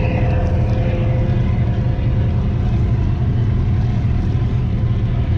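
Motorboat engine running steadily: a continuous low drone with a constant hum above it.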